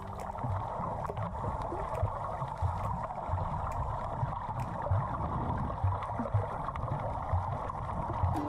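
Water sloshing and gurgling, with irregular low thuds.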